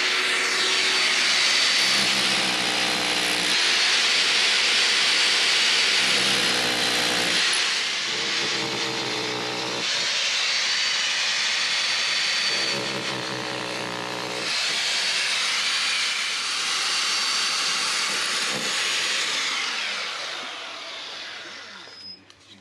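Electric masonry drill (SDS-type hammer drill) working into concrete blockwork, running almost without a break with a steady high whine over the hammering. It dips briefly a few times and winds down near the end.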